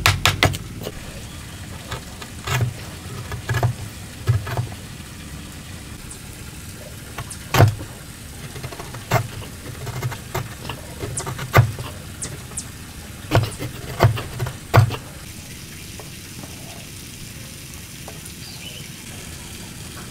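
Chisel working a hardwood block: about a dozen sharp, irregularly spaced knocks and taps on the wood over a steady background hiss. The knocks stop about three-quarters of the way through, leaving only the hiss.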